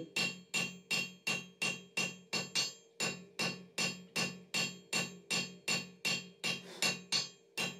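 Hand hammer striking glowing 10mm steel bar on an anvil in a steady rhythm of about three blows a second, each blow ringing, as the tapered point is worked from octagon toward a finer section.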